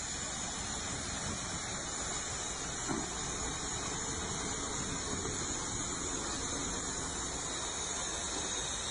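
Steady high-pitched hiss of spray escaping under pressure from a torn line at the front of a Renault truck.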